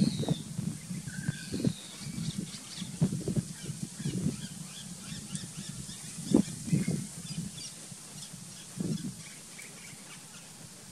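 Outdoor bush ambience: scattered short bird chirps and calls, with irregular low rustles and thumps that are loudest near the start and about six seconds in.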